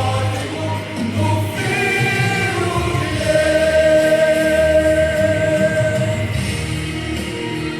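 Choral singing in a music track, with one long held note in the middle, over a steady low bass.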